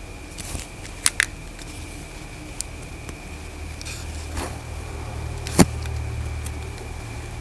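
Sharp clicks from handling a small gadget: a quick double click about a second in and a louder single click past the middle. Under them a low steady hum swells in a few seconds in.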